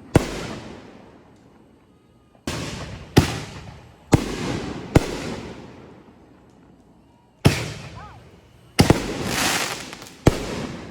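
Aerial fireworks going off: a series of about eight sharp bangs, each trailing off in a rumbling echo, some spaced a second or less apart and others a few seconds apart.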